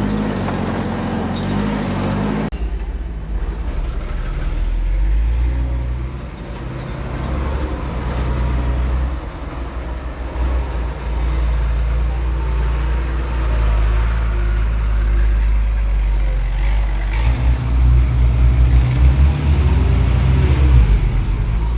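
Diesel engine of heavy earthmoving equipment running steadily at a low rumble, with an abrupt change in the sound about two and a half seconds in. The engine works harder and louder in the last few seconds.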